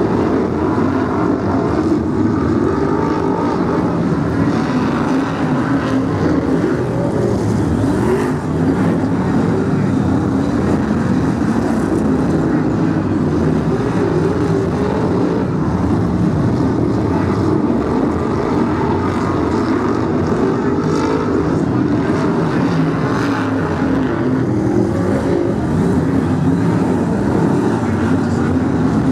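A pack of Brisca F1 stock cars racing, their V8 engines revving up and down, many engine notes overlapping as the cars lap and pass.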